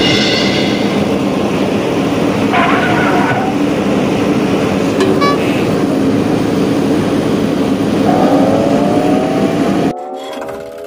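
Loud vehicle engine sound running steadily, with short horn toots at the start and about three seconds in, and revving that climbs in pitch near the end before it cuts to a quieter revving engine.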